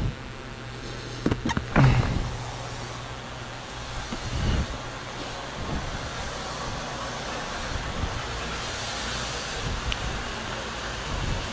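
Road traffic passing, a steady rumble of vehicles with a couple of knocks about one and two seconds in.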